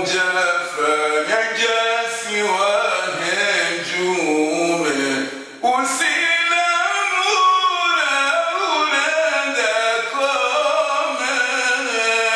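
A man chanting a poem in Comorian in a slow, melodic voice, the phrases drawn out and gliding in pitch, with a short pause for breath about five and a half seconds in.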